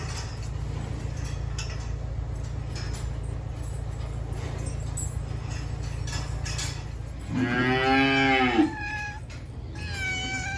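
A cow mooing once, loudly, about seven seconds in, over a steady low hum. A shorter, higher call follows near the end.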